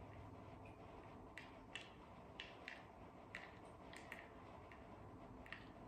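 Near silence with about a dozen faint, irregular light ticks and clinks from crushed ice being stirred in ice water in a plastic bowl with a pipe temperature clamp.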